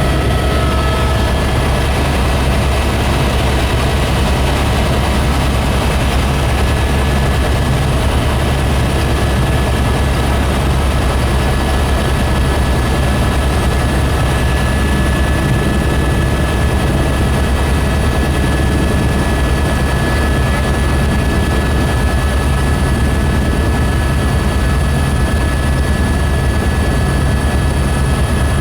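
Helicopter in flight heard from on board: a steady, loud drone of rotor and turbine engine with a deep rumble and a few steady high whining tones above it.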